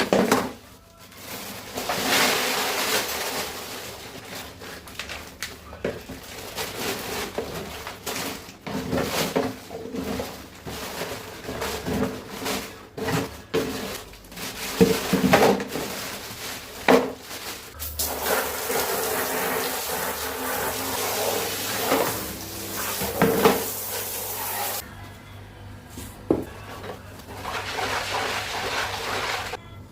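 Cat litter box being cleaned: litter scooped and poured, with gritty rushing spells and repeated sharp knocks and scrapes of plastic.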